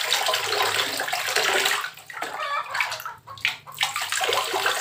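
Water poured from a plastic dipper splashing over a plastic dome CCTV camera and onto the floor below. The pour breaks off twice in the middle, about two seconds in and again a second later, then runs on.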